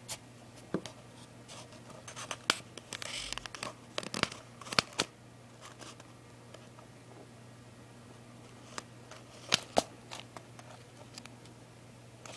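Sparse light clicks and scratches from a hermit crab's shell being handled by fingers as the crab crawls on a cloth surface, with two sharper clicks close together about three-quarters of the way through.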